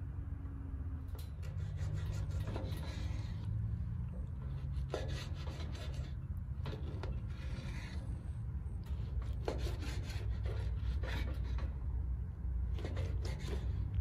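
Large knife slicing through raw lamb liver on a wooden cutting board, the blade scraping and rubbing on the wood in several spells of short strokes, over a steady low rumble.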